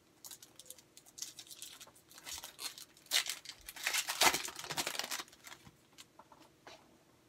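Foil wrapper of a 2013 Bowman football card pack being torn open and crinkled, in a run of irregular crackles that are loudest in the middle.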